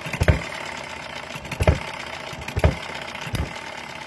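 Miniature single-cylinder spark-ignition hit-and-miss engine running cold and unheld, with four sharp firing beats about a second apart over the steady sound of the flywheels turning between firings. Its high compression makes it bounce about on its base.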